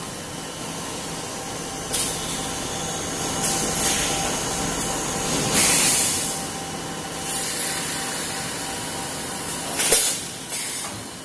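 HDPE bottle blow molding machine running: a steady machine hum under repeated sudden blasts of compressed-air hissing. The longest blast comes about six seconds in, and two short, sharp ones come near the end.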